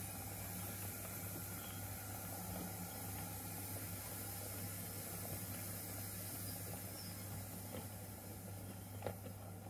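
0 gauge model goods train running slowly past on the layout track: a low steady hum with a hiss over it, and a single sharp click about nine seconds in.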